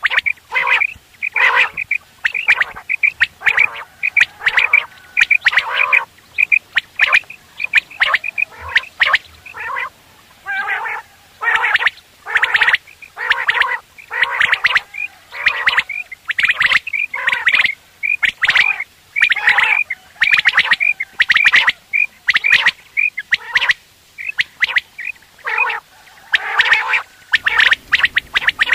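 Common quail calling: a rapid, continuous series of short repeated calls, several a second, broken only by brief pauses.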